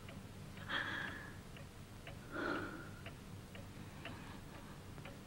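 A clock ticking faintly and steadily, with two soft breathy sounds, the first about a second in and the second about two and a half seconds in.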